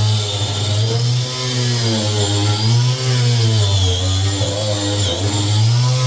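Power tool spinning a wire wheel against a car's floor pan, stripping surface rust; the motor's pitch wavers, dipping and recovering every second or so as it is pressed into the metal.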